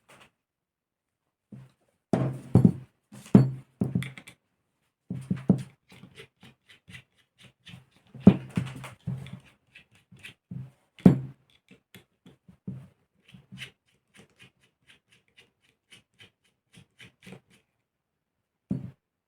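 Engine parts and hand tools being handled on a workbench during disassembly of a model aircraft engine: an irregular series of knocks and clicks, with a few heavier thuds among lighter ticks.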